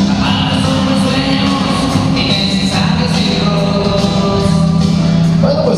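Loud dance music with a singing voice, played over a DJ sound system in a large gymnasium hall.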